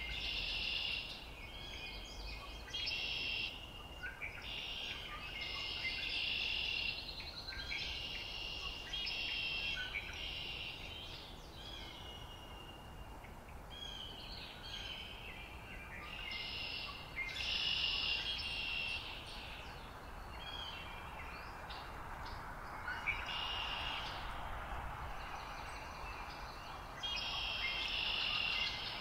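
Songbirds singing in the open: short, high trilled phrases repeated every couple of seconds, over a faint low rumble. A soft rushing rises in the last third.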